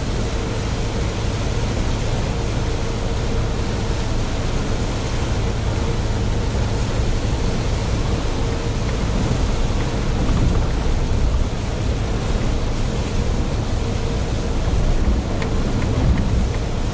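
Mitsubishi Fuso heavy truck's diesel engine droning steadily at cruising speed, under the hiss of tyres on a rain-wet road.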